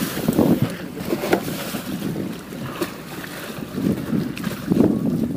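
Wind buffeting the microphone, louder in gusts about half a second in and again near the end, over water lapping at a small boat's hull. A few light knocks come from fishing gear being handled in the boat.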